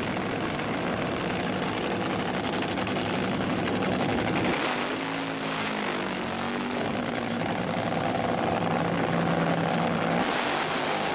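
Vehicle engines running at a drag strip, a steady din with a low engine hum through it. The sound changes abruptly about four and a half seconds in and again near the end, as one clip gives way to the next.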